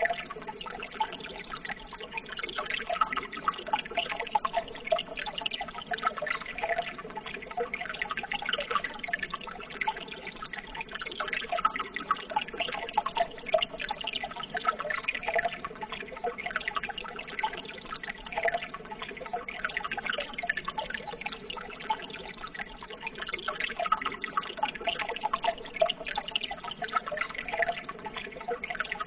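Running water trickling and splashing steadily, with many small irregular drips and splashes, like a small stream.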